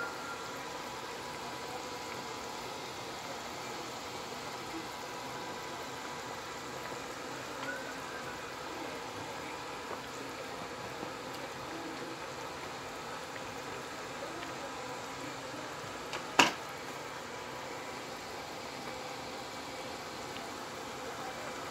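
Pot of nilagang baka (beef broth with corn, cabbage and potatoes) simmering on the stove: a steady bubbling hiss. A single sharp click cuts through about sixteen seconds in.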